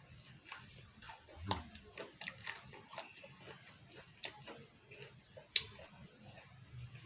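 Close mouth sounds of someone eating rujak: irregular wet chewing clicks and smacks, with sharper bites about one and a half, four and five and a half seconds in, the last the loudest.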